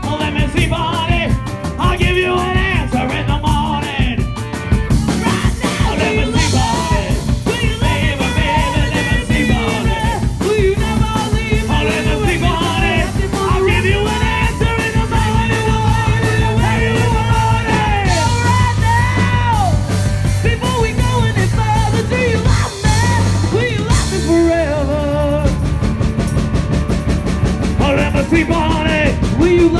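Live rock-and-roll band playing, with a singer over a steady beat.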